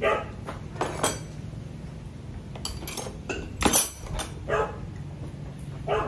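A dog barking repeatedly, about eight short barks at irregular intervals, over a faint steady low hum.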